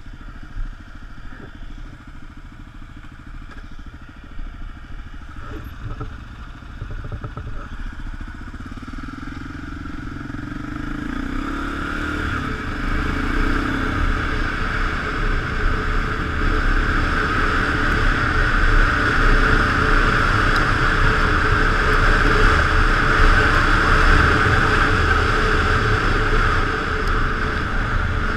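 Kawasaki KLR650 single-cylinder engine running as the motorcycle rides a sandy dirt track, with a few knocks over the first several seconds. From about eight seconds in it grows steadily louder as the bike picks up speed and wind rush over the microphone builds.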